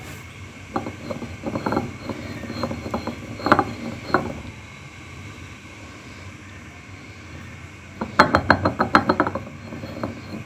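Stone roller knocking and grinding against a flat stone grinding slab as ingredients are crushed by hand: irregular clusters of hard stone-on-stone knocks, then a quick run of knocks near the end.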